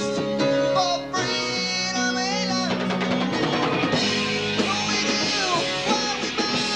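A rock band playing live: drums, bass guitar, electric guitar and keyboards, with a voice singing a line in the first part.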